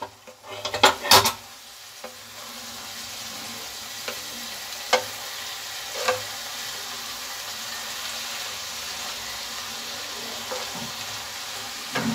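Wooden spatula scraping and stirring chopped radish and radish leaves in a nonstick kadai, several loud strokes in the first second and a half. The vegetables then sizzle steadily over a low flame, with a few sharp taps of the spatula against the pan.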